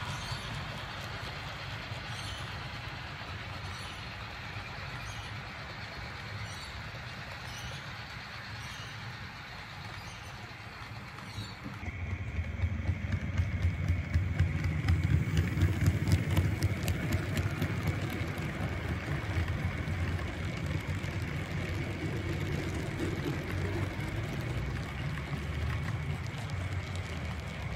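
Model railway freight train rolling along the track: a steady running hum with a light, regular clicking of wheels over rail joints. About twelve seconds in it turns louder, a deeper rumble with dense clicking and a steady high whine as a train comes close.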